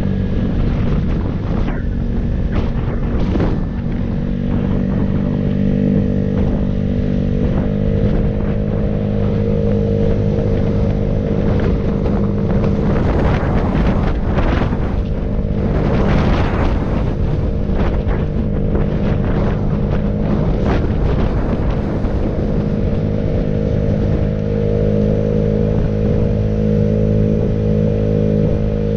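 Engine of a moving road vehicle running at a fairly steady speed. Noisy rushes of wind and road noise come and go over it, heaviest around the middle.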